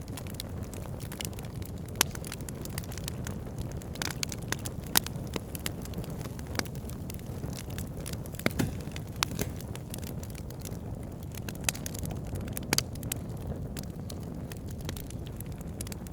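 Wood campfire crackling: irregular sharp pops and snaps, a few louder than the rest, over a steady low rush of burning flames.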